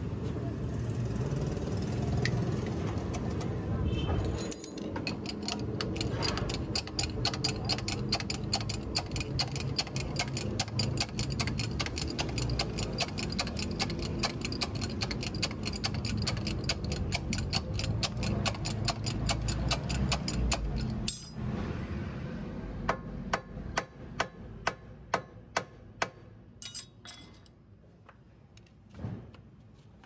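Rapid, even metallic clicking, about four or five clicks a second, over a low hum, from tool work on a car's front suspension. About 21 seconds in the steady run stops and gives way to a handful of separate, louder clicks about half a second apart.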